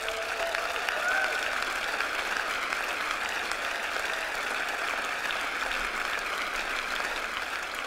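Audience applauding steadily, a crowd clapping in welcome as a performer comes on stage.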